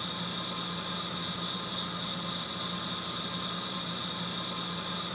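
Steady hiss with a constant low hum and high-pitched tones, unchanging throughout.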